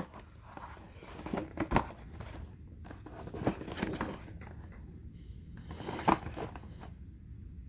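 Cardboard knife box being handled and turned over on a wooden table: scattered light taps, knocks and rustles of the box, the sharpest about six seconds in.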